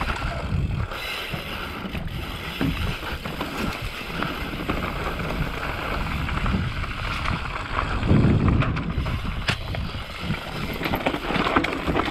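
Mountain bike rolling down a dirt trail: a continuous rumble of tyres over the ground with scattered knocks and rattles from the bike, getting louder about eight seconds in.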